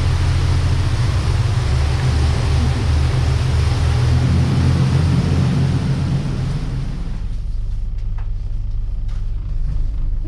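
Passenger boat's engine running with a steady low hum under a rushing noise of wash and air. The rushing noise falls away about seven seconds in, leaving the engine hum, and a few light knocks follow near the end.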